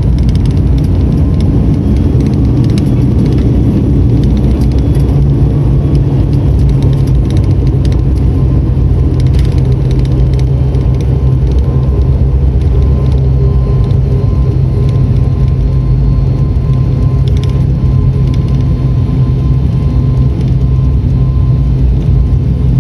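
Steady drone of a turboprop airliner's engines and propellers heard inside the cabin on the approach to landing. It is a dense low rumble with a steady hum and a thin steady whine above it, plus faint light rattles.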